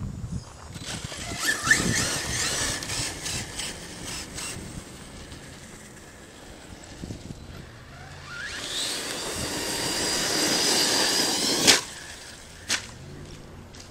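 Arrma Kraton 6S RC truck's brushless electric motor whining as it accelerates, first in a short burst about a second in, then in a longer rising whine from about eight seconds in. The whine cuts off suddenly with a sharp knock, followed by a second knock about a second later.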